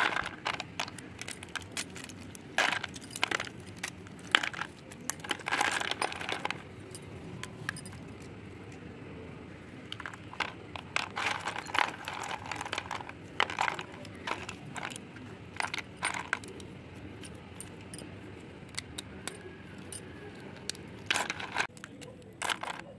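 Slate pencil sticks clicking and clattering against each other and the plastic tub as hands stir and sift through them, in irregular handfuls with a few longer spells of dense rattling.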